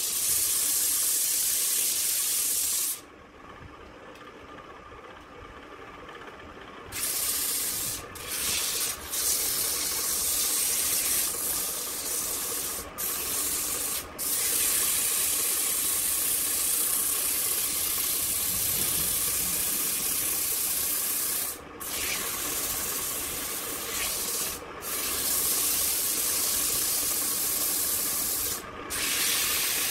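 Sandpaper held in a gloved hand rubbing against a wooden vase spinning on a wood lathe: a steady, bright hiss that falls away for about four seconds near the start and breaks off briefly several more times as the paper is lifted. The lathe's steady hum runs underneath.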